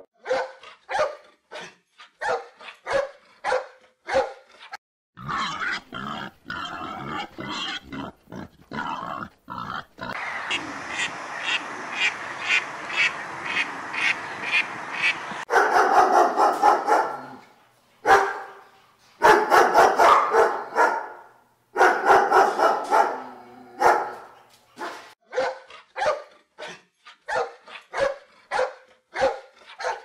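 Dog barking over and over in several runs of short barks, faster near the end. About a third of the way in, a few seconds of continuous rough sound with rapid pulses breaks up the barking.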